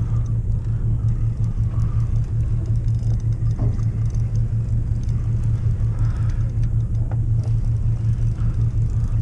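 A boat's engine running with a steady, low drone.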